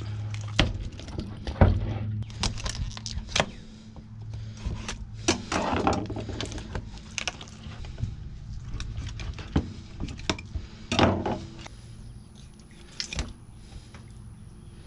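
Snapping turtle being butchered with a knife on a plastic cutting board: irregular clicks, knocks and cracks as the shell and joints are twisted and cut, with a longer rasping noise about six seconds in and again about eleven seconds in. A steady low hum runs underneath.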